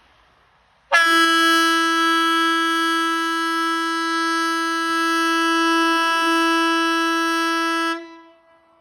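Swedish 'Hesa Fredrik' civil defence warning siren sounding one very loud blast at a steady pitch. It starts abruptly about a second in, holds for about seven seconds and cuts off near the end. It is one seven-second blast of the 'Important message to the public' (VMA) warning signal.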